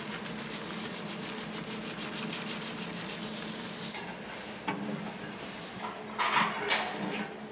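A wooden stick stirring broth in a large hammered-aluminium stockpot, scraping and swishing in quick, even strokes. A few louder knocks and swishes come near the end, over a steady low hum.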